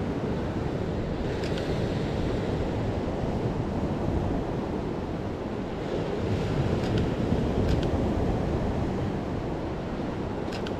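Lake Superior waves washing against a rocky shore, mixed with wind buffeting the microphone as a steady low rumble, with a few faint clicks.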